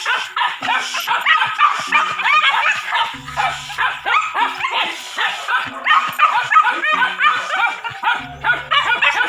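A dog barking in fast, high-pitched yips with no break, baying at a penned wild boar, as a novice hunting dog does when first put to boar.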